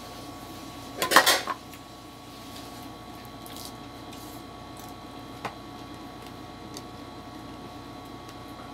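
Ceramic plates clattering against each other and the table for about half a second, about a second in, then a faint click of dishes over a steady low hum.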